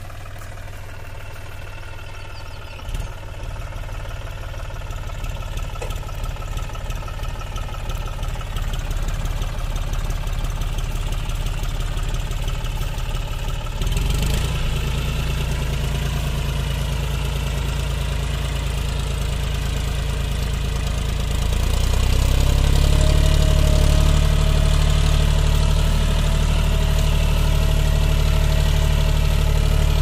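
John Deere 5105 tractor's three-cylinder diesel engine running steadily under load while pulling a two-bottom reversible mouldboard plough through the soil, growing louder as the tractor comes closer.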